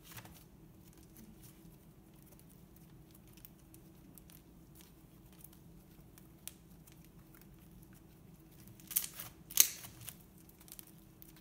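Slime being kneaded and stretched by hand: faint scattered clicks and squelches, with a louder burst of crackling pops about nine seconds in.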